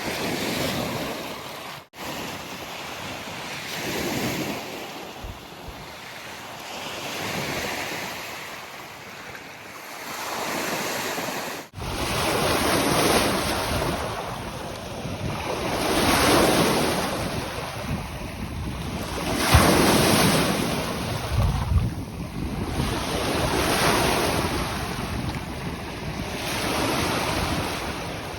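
Lake Michigan waves washing onto the beach, swelling and falling every few seconds, with wind gusting on the microphone. The sound cuts out briefly twice.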